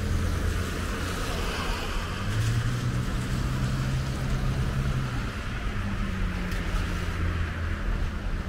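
Road traffic on a wet road: car engines humming as they pass, with the steady hiss of tyres on wet asphalt.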